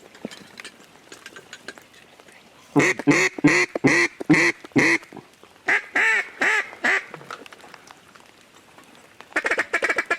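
Mallard duck call blown in loud quacks: a run of about seven, then a shorter run of four, then a fast chatter near the end.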